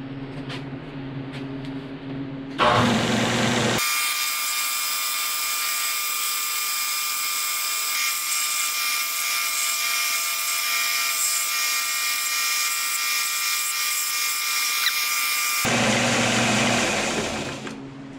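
Belt sander running, with a small metal lead-screw mount held against the moving belt and ground to a rounded radius. It starts sharply about two and a half seconds in, runs as a steady grinding hiss with a high whine, and dies away near the end.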